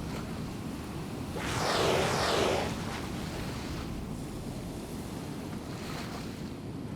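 Sea waves and wind buffeting the microphone, with one louder wave surging and washing about one and a half seconds in.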